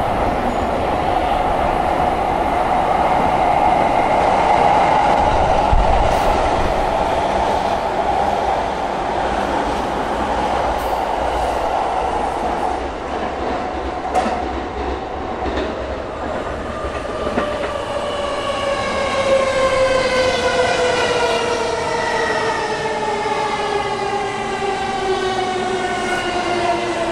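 Electric train passing through a station at speed with a steady rumble of wheels on rail. In the second half a whine of several tones takes over, falling slowly in pitch, from an electric train's motors.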